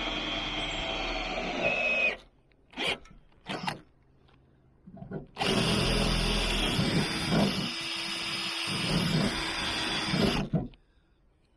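Cordless drill boring a hole through the campervan roof for the solar cable entry gland: it runs, slows and stops about two seconds in, gives a couple of short blips of the trigger, then runs steadily again for about five seconds before stopping.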